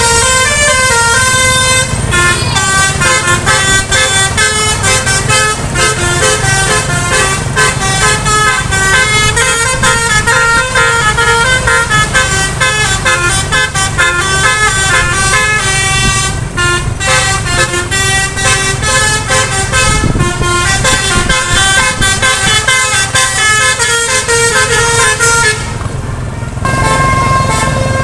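Bus's multi-tone musical 'basuri' horn playing a fast stepping melody, over the low run of the engine and road noise. The tune breaks off briefly about two seconds before the end, then resumes.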